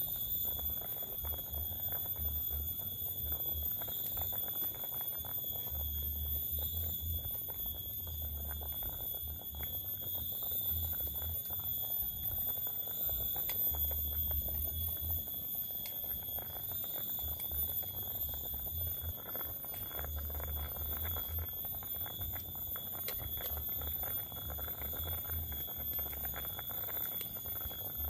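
A steady high-pitched drone on one unchanging tone, with low rumbles coming and going and faint ticks, while tofu and scallions boil in a pot over the camp fire.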